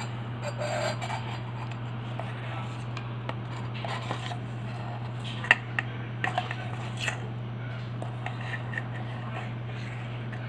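Metal spoon scraping through melted ice cream in a stainless steel bowl, with a few sharp clinks of the spoon against the steel about halfway through. A steady low hum runs underneath.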